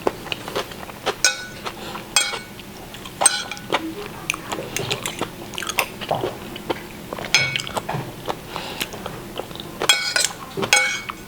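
A person chewing a mouthful of stir-fried basil with mushrooms close to the microphone, with cutlery clinking against a plate about six times.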